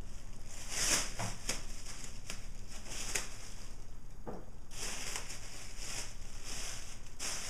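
Thin plastic bag crinkling and rustling in irregular crackles, with a few sharper clicks, as it is gripped and pulled against the Leatherman Z Rex's hook blade to cut it.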